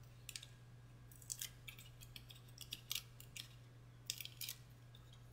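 Faint, scattered little clicks and rustles of paper and cardstock pieces being handled and pressed onto a card, over a low steady hum.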